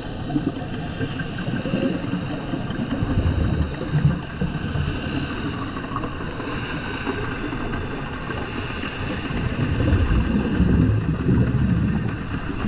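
Boat engine and propeller heard underwater: a steady drone with several steady whining tones above it, over a low rumble that swells louder a few seconds in and again near the end.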